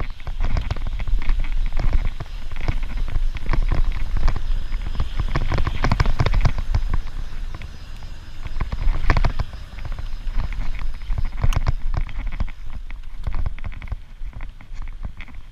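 Bicycle riding over a rough dirt track: dense, irregular crackling and rattling from the tyres and frame, over a heavy wind rumble on the microphone.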